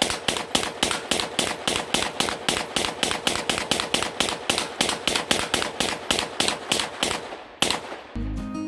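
Extar EP9 9mm pistol fired in rapid semi-automatic fire, about four shots a second, as a 30-round magazine of 124-grain ammunition is emptied as fast as possible. The gun cycles through the string without a stoppage. A last shot comes after a short pause near the end, then music starts.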